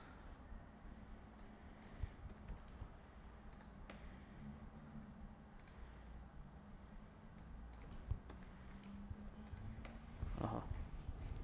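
Scattered keystrokes and mouse clicks on a computer, a few at a time, over a faint low hum, with a short muffled sound about ten seconds in.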